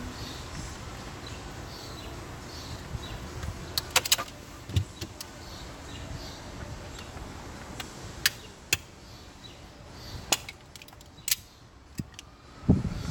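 Scattered sharp clicks and light knocks, about eight in all, from hands handling car trim parts and tools during reassembly.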